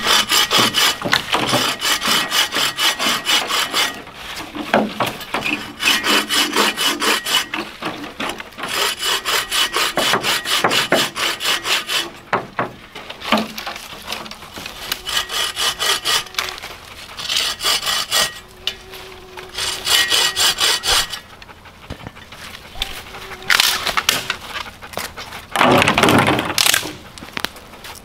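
Hand saw cutting a wooden branch, with quick, even back-and-forth strokes in runs of a few seconds separated by short pauses. A louder, rougher stretch comes near the end.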